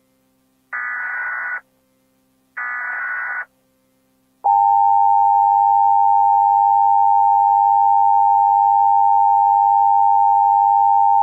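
Emergency Alert System signal: two short, screechy data bursts of the header code about two seconds apart, then, about four and a half seconds in, the loud steady two-tone attention signal begins and holds.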